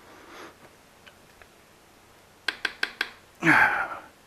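A hand tool on the motorcycle's rear wheel gives a quick, even run of about five sharp metallic clicks, followed by a short, loud breath from the mechanic.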